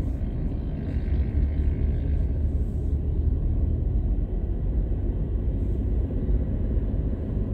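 Steady low rumble of a car's engine and tyres, heard from inside the cabin while driving at city speed.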